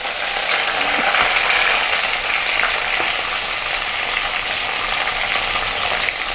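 Chopped onions, tomatoes and coriander leaves sizzling in hot oil in a kadai, a steady frying hiss with a few small crackles.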